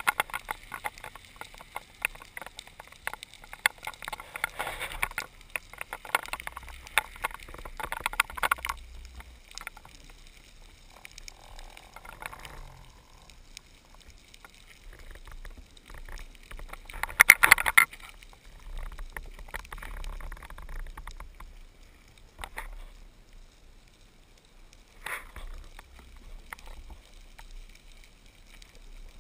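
Underwater sound during a freedive: a steady crackle of sharp clicks, with swells of rushing water noise from the diver's movement. The loudest swell comes about seventeen seconds in.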